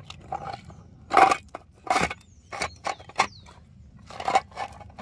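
Irregular scrapes and knocks of dirt, stones and a small metal tin as a gloved hand works it loose from under a rock, with the loudest strokes about a second in, two seconds in and again past four seconds.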